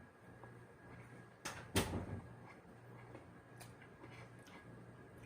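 A few short knocks and clacks from things being handled at the dinner table, the loudest about two seconds in, over a steady low hum.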